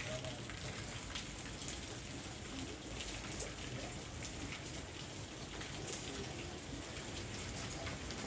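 Steady rain falling, with many separate drops striking a surface as quick ticks over the constant hiss of the downpour.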